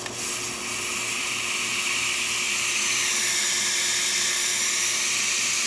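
Breville Oracle's steam wand venting steam: a loud, steady hiss that starts just after the valve opens. It is strong steam from the freshly serviced steam boiler.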